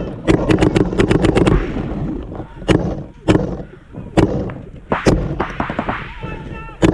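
Paintball markers firing: a rapid string of sharp pops in the first second and a half, then single shots every half second to a second.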